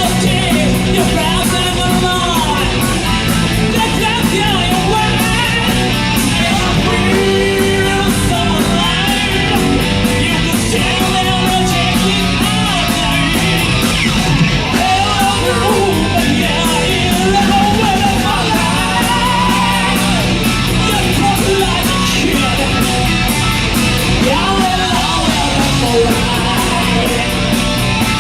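Live hard rock band playing loud: distorted electric guitar over bass and drums, with a melodic line bending in pitch.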